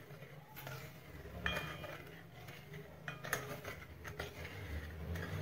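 Plastic spatula stirring sugar and water in a stainless steel pan. It knocks and scrapes against the metal side several times, and some knocks leave a short ring.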